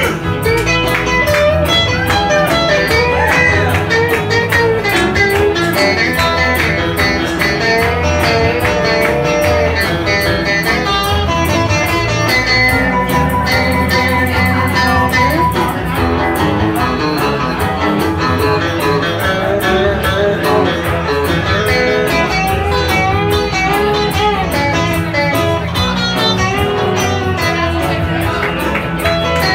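Live country band playing an instrumental stretch, an electric guitar playing lead lines over a steady beat.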